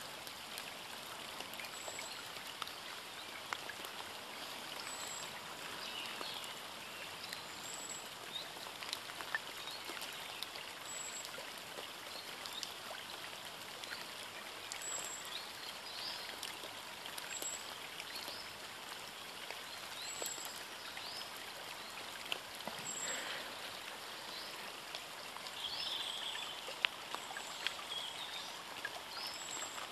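Steady outdoor background hiss, with small birds chirping now and then and a faint high peep repeating every second or two.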